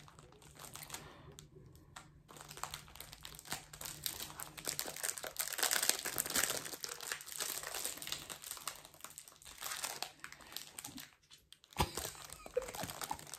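Clear plastic film wrapping on a packaged notebook cover crinkling as fingers pick and pull at it, trying to get it open, in irregular crackles that are loudest in the middle. A sharp click near the end.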